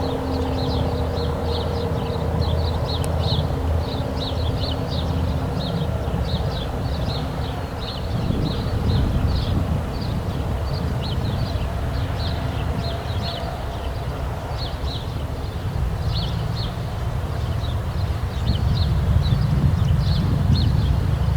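Outdoor background with a steady low rumble and small birds chirping over and over in short high notes; no siren is sounding.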